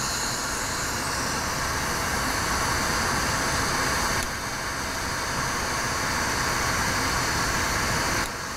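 Glassworking bench torch flame burning with a steady rushing noise, dipping slightly about four seconds in.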